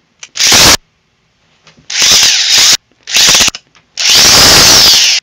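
Cordless drill-driver running in four short bursts, driving a self-tapping screw into a galvanized sheet-steel pipe clamp. The last burst is the longest, with the motor's pitch wavering.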